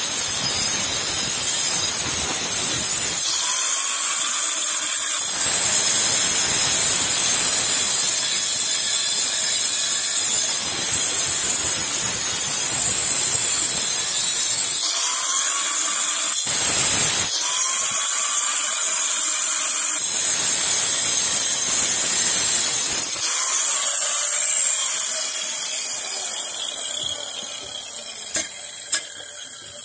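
Angle grinder with a diamond cutting disc running at speed and cutting through a steel pipe. The grinder's loud, hissing cutting noise comes and goes as the disc bites, then winds down over the last few seconds, with a couple of short knocks near the end.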